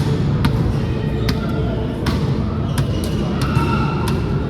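Volleyballs being hit and bouncing in a gym: about eight sharp smacks at uneven intervals, over a steady rumble of players' voices in the hall.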